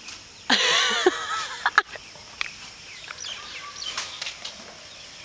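A woman's excited high-pitched squeal, about a second long, wavering in pitch. Two sharp clicks follow, then faint bird chirps.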